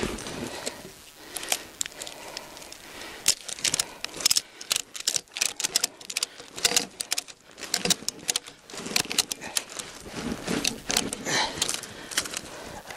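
Ratchet tie-down strap being cranked tight over a load of logs: runs of quick metal clicks with short pauses between strokes, most of them in the middle few seconds.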